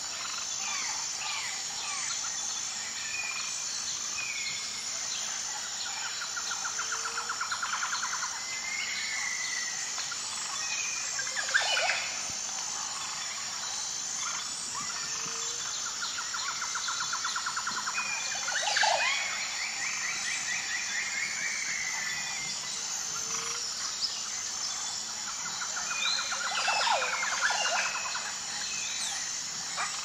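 Outdoor birdsong: assorted short bird calls and downward-sweeping cries, with a fast pulsing trill that comes three times, about ten seconds apart, over a steady high-pitched buzz.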